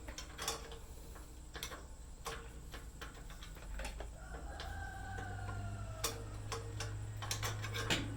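Scattered sharp metal clicks and clinks of hand tools and bolt hardware being worked. A rooster crows once, a call of nearly two seconds that falls in pitch, starting about four seconds in.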